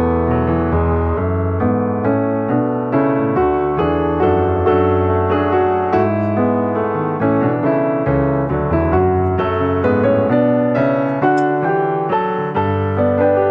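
Background piano music: a steady run of notes and chords at an even pace.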